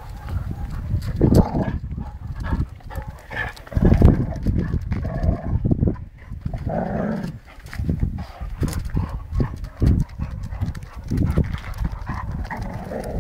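Two dogs play-fighting over a ball, growling and scuffling on concrete in uneven bursts.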